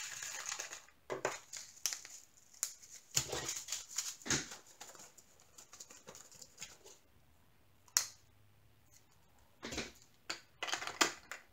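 Small plastic zip-lock bags crinkling and clicking as they are handled, opened and pressed shut, in short irregular spells with a sharp click about eight seconds in.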